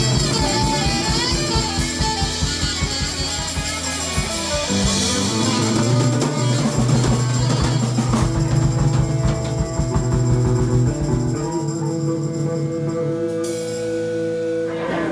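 Live rock band playing, with guitar and a drum kit; about three-quarters of the way through the drums drop out and held guitar notes ring on.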